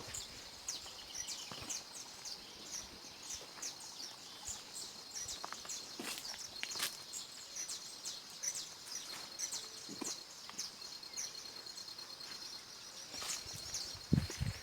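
Small songbirds chirping over and over in short, high notes. A fast, even pulsing trill runs through the middle, and there are a few low thumps near the end.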